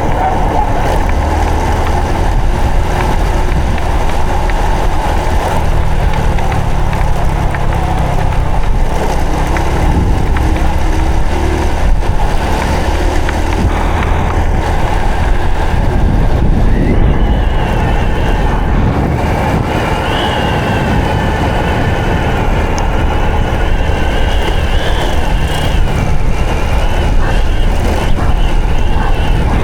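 Honda Supra X 125 FI motorcycle's single-cylinder four-stroke engine running under way, its note shifting in pitch a few times. A wavering high whine joins about halfway through.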